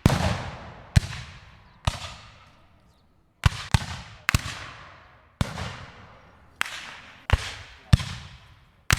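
Rifle muskets firing at random: about eleven sharp shots at uneven intervals, some in quick pairs, each followed by a long echoing tail that fades away.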